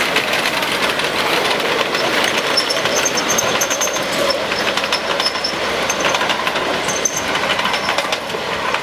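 Miniature ride-on train running along its track, with a steady run of quick clicks from the wheels over the rails.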